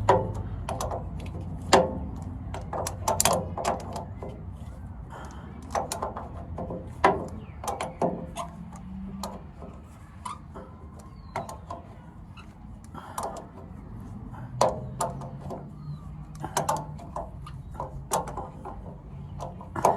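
Irregular metallic clicks and knocks of hand tools at work, a wrench among them, over a low steady hum.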